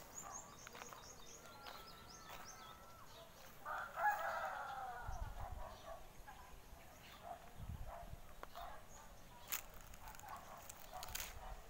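A rooster crows once, about four seconds in, as one drawn-out call. Faint high chirps of small birds come near the start.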